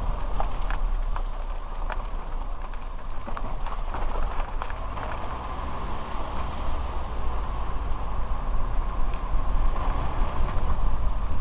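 Suzuki Jimny driving along a mountain road: a steady rumble of engine and tyre noise, with scattered sharp clicks and ticks through the first half.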